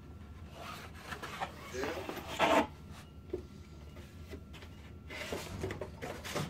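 Cardboard sleeve rubbing and scraping against a plastic tool case as it is slid off, in irregular rustling spells, loudest about two and a half seconds in, with more rubbing near the end.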